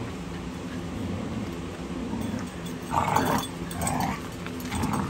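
Puppies play-fighting, growling steadily and low, with three short, higher-pitched yips about three, four and five seconds in.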